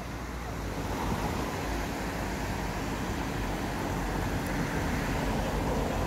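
Shallow, rocky stream rushing over stones: a steady wash of water noise that grows a little louder about a second in.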